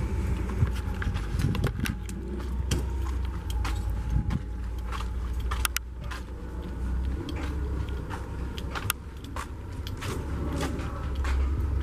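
Low, uneven rumble of wind buffeting the camera microphone outdoors, with scattered light clicks and knocks from footsteps and the camera being handled as it is carried along.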